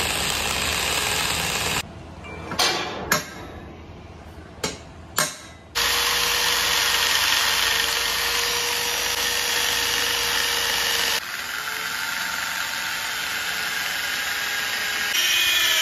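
Electric hand drill running as it bores holes, first into a skull ornament and then into a tractor silencer's bent pipe. It drops away between about two and six seconds in, where there are only a few sharp clicks, then runs steadily again with a held tone.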